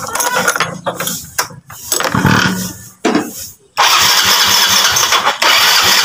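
Yamaha Mio Sporty scooter's single-cylinder four-stroke engine being started: several short, uneven cranking attempts, then it catches about two-thirds of the way in and runs loud and steady on the throttle. It is hard starting, needing gas just to fire, a symptom of the misfire being chased.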